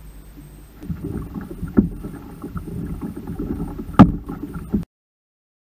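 Water sloshing and splashing against a kayak, with sharp knocks, the loudest about four seconds in; the sound cuts off suddenly just before five seconds.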